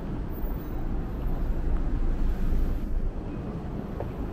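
City street traffic: a steady low rumble of road vehicles that swells louder between about one and three seconds in, as if a vehicle passes close by.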